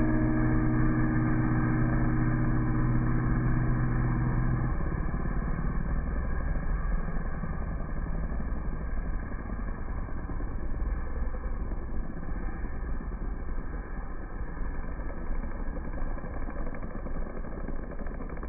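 A pack of motocross bikes running at the starting gate and then launching off the line together, their engines fading gradually as they ride away.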